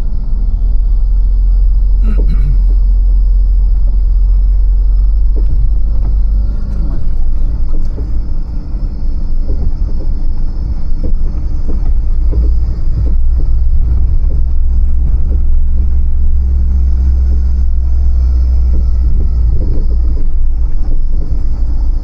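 Vehicle on the move, a steady loud low rumble of engine and road noise.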